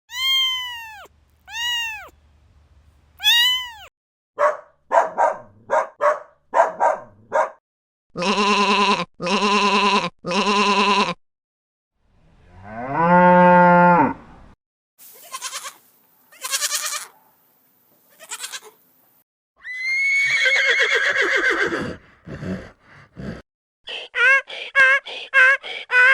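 A string of different baby animals' calls, one after another with short gaps between, like bleats and cries of several kinds. Some come in sets of three alike calls.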